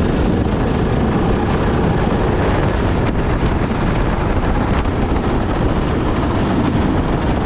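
Racing kart's small engine running at speed, heard from the driver's seat, largely buried under steady wind rush on the camera microphone.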